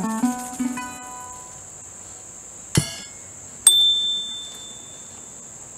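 Last plucked notes of a resonator guitar ringing out and fading as the tune ends, over a steady high hum of insects. Nearly three seconds in there is a sharp knock, and a second later a sharp metallic ding that rings on for about a second.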